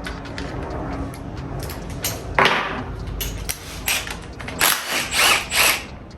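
Hand tools working on the bolts of a Honda H22 Prelude gearbox casing: scattered clicks and metal knocks, with a louder burst a couple of seconds in and several short, loud ratcheting bursts near the end.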